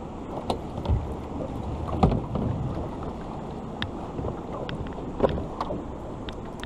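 Flowing river water and wind buffeting the microphone around a drifting boat, a steady rushing noise, with scattered small clicks and knocks and a heavier thump about two seconds in.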